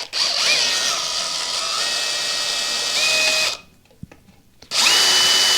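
Electric drill-driver undoing an Allen bolt, in two runs. Its motor whine rises as it spins up, holds steady, stops about three and a half seconds in, and starts again about a second later.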